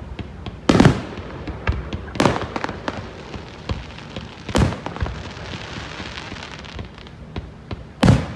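Fireworks display finale: four loud aerial shell booms, about a second in, a little after two seconds, mid-way and near the end, each with a short echoing tail, and many smaller pops between them.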